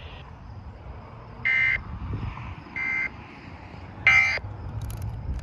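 Three short, buzzy data bursts from a NOAA weather radio, about a second and a quarter apart: the EAS/SAME end-of-message tones that close a severe thunderstorm warning broadcast. A low rumble runs underneath.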